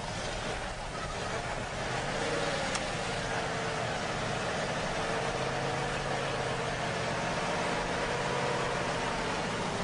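An engine running steadily, with a pitched hum that comes in and grows slightly louder about two seconds in.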